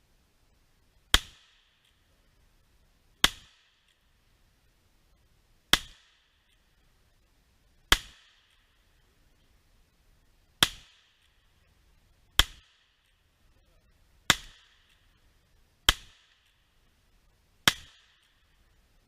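Chiappa .22LR single-action revolver fired in slow, steady single shots: nine sharp cracks about two seconds apart, each with a short ring afterwards.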